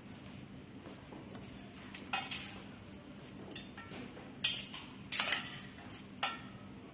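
Irregular sharp metallic clinks and taps, about six in all, the loudest about four and a half and five seconds in: screws and a drill/driver bit knocking against the steel frame of a 360 photo booth base while its bearing is being removed.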